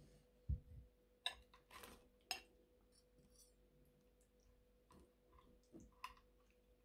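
A soft thump about half a second in as a drinking glass is set down on the table, then a few light clinks of a metal spoon against a glass serving bowl.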